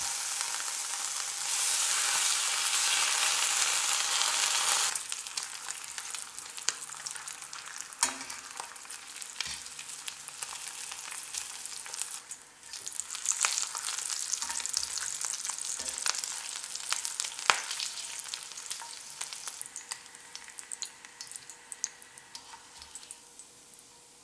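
Bacon rashers frying in a cast iron skillet, their fat rendering out. A loud steady sizzle drops after about five seconds to a quieter crackle with scattered sharp pops, which fades near the end.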